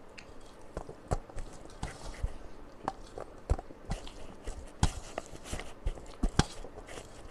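A person eating rice and curry, with irregular clicks and smacks of chewing and mouthfuls, about one or two a second.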